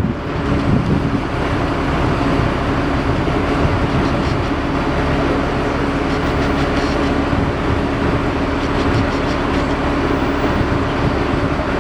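A motor vehicle's engine running steadily at an even pitch, with a constant low hum and a few faint high ticks.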